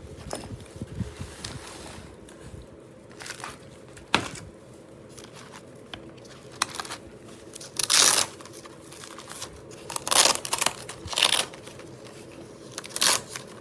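Packaging being crinkled and torn open by hand, in several short rustling bursts.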